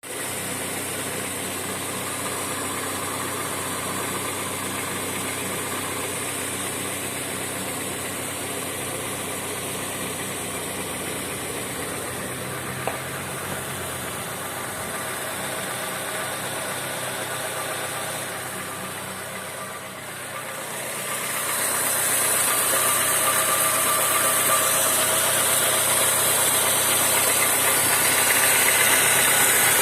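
Honda Civic sedan's engine running steadily with a knock, the fault it is being recorded to show. The sound gets louder about two-thirds of the way through.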